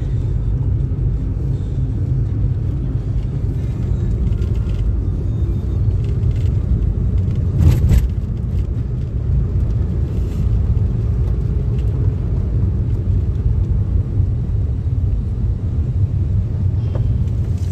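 Steady low rumble of a car driving, heard from inside the cabin: engine and tyre noise. A single short knock sounds about eight seconds in.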